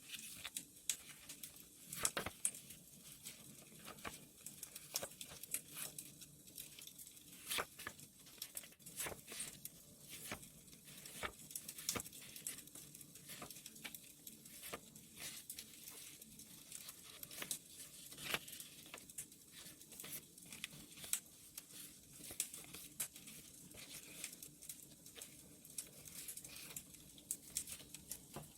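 Wood fire crackling, with irregular sharp pops and snaps, mixed with paper being handled and torn during journal decorating.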